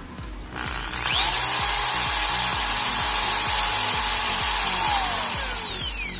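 Makita corded impact drill running free with no load. Its motor spins up with a rising whine about a second in, runs steadily at full speed, then coasts down with a falling whine near the end. Background music plays under it.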